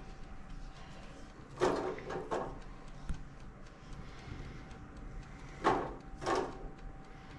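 Cut raw potato sticks dropped by hand into an electric deep fryer's wire mesh basket: soft clattering in two short bunches, about two seconds in and again near six seconds, over a faint steady hum.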